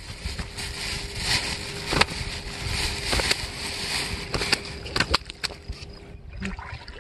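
A freshly landed carp flapping against dry grassy ground and being pinned down by hand: scattered thumps and rustles over a light hiss.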